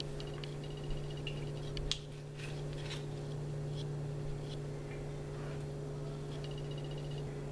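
Steady low electrical hum of room tone, with a few faint clicks and taps about two and three seconds in as butter pats are handled over the baking dish.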